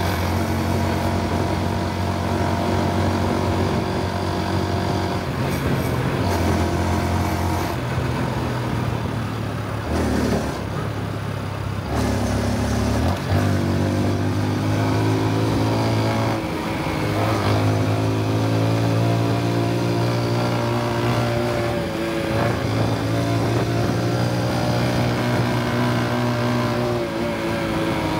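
Honda Super Cub C125's single-cylinder engine and exhaust while riding. The revs sag about ten seconds in, then climb twice with a drop at each gear change, and hold steady near the end.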